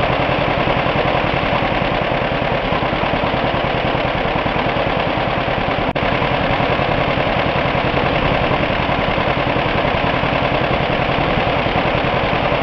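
An engine running steadily at idle with a fast, even run of firing pulses, broken by a momentary dropout near the middle.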